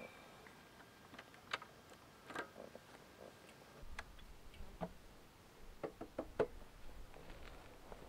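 Scattered light clicks and knocks, with a quick cluster of them a little after the middle, from a rider handling a stopped motorcycle and his gear as he gets off.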